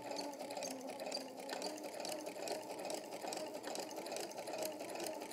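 Home electric sewing machine stitching a seam, a steady motor hum with soft, evenly repeated ticks from the needle mechanism.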